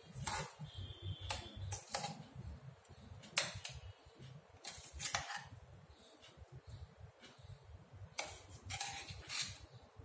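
A spoon scraping thick ground chutney out of a stainless steel mixer-grinder jar, tapping against the jar and a ceramic bowl: faint, irregular scrapes and clicks.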